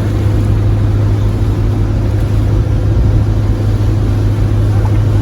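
Dive boat's engine running steadily under way: a constant low drone.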